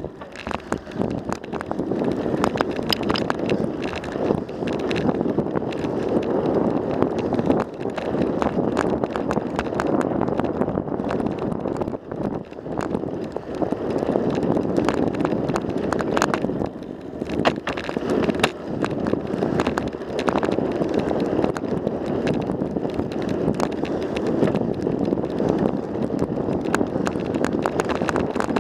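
Wind rushing over the microphone of a camera mounted on a moving bicycle, with irregular clicks and rattles from the bike and its mount as it rolls over the paved path.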